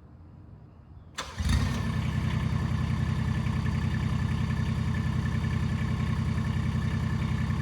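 Chinese mini excavator's engine starting about a second in, catching quickly and then running at a steady idle.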